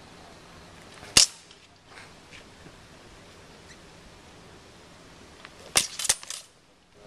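Steel longswords clashing in sparring: one sharp, ringing clash about a second in, then a quick flurry of several clashes near the end.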